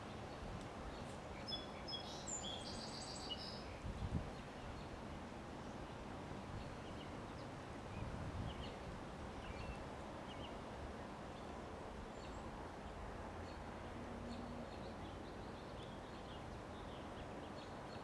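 Wind blowing through a tree canopy, a steady rustle of leaves, with a bird chirping several times in the first few seconds and a few faint chirps later. A brief low rumble about four seconds in is the loudest moment, with a smaller one about eight seconds in.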